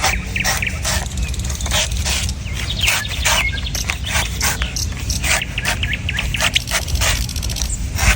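A sharp knife chopping into coconuts in quick, irregular strikes, a few a second, with birds chirping in the background.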